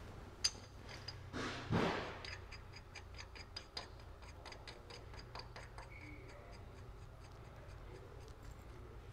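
Ratchet wrench on drive shaft lug nuts clicking in quick, even ticks for several seconds as the nuts are run down. A brief rustle of handling comes before the clicks.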